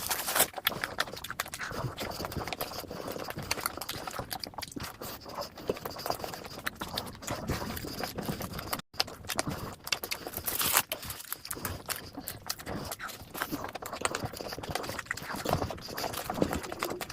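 Close-up eating sounds: chewing and wet mouth smacks in quick, irregular clicks, broken by a momentary cut about halfway through.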